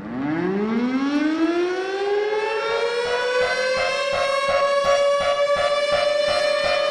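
Civil defense warning siren starting from silence and winding up from a low pitch to a steady high wail over about two seconds. It then holds its tone with a regular pulsing.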